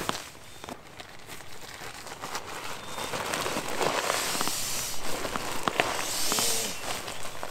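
Nylon of a NEMO inflatable sleeping pad crinkling and rustling as it is handled and pushed into a tent, with a few light clicks; louder from about three seconds in.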